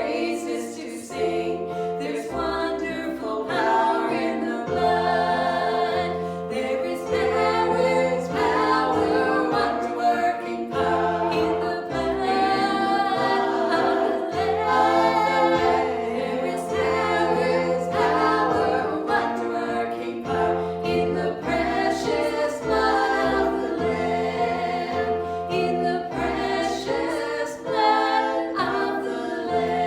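Church worship singing: a group of voices singing a song together over held low accompanying notes that change every second or two.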